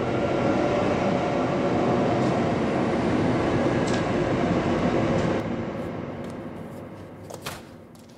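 A passing train rumbling steadily, then fading away from about five seconds in, with a couple of light knocks near the end.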